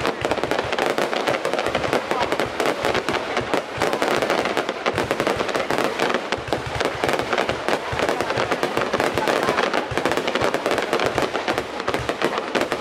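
Fireworks going off in a dense, unbroken crackle of rapid pops and bangs.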